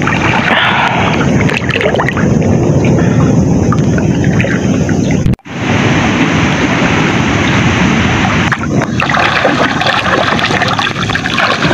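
Fast floodwater rushing and splashing around people wading chest-deep, a loud continuous churning with a heavy low rumble; it breaks off for an instant about five seconds in.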